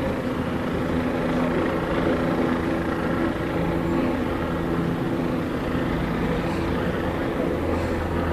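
Police helicopter's steady drone, an even hum that holds through, with a little street noise beneath it.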